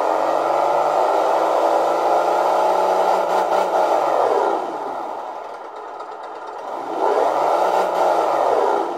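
Simulated RC crawler-truck engine sound from the Sense Innovations ESS One Plus sound library, played back through a computer's speakers. The engine runs and revs up and back down twice, dropping quieter in between, and cuts off abruptly at the end when the preview is stopped.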